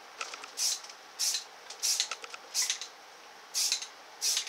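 Aerosol spray-paint can giving about six short, high hisses of spray, with a few small clicks between them.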